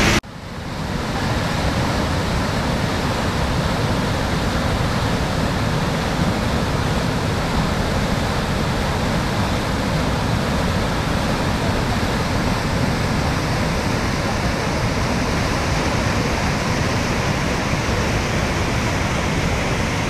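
Kivach waterfall's white-water cascade rushing over rock, a steady, even wash of water noise that fades back in over the first second or so.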